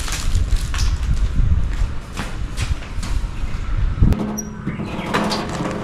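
Footsteps on a concrete floor, with wind buffeting the microphone in low rumbles. About four seconds in, a steady low hum begins.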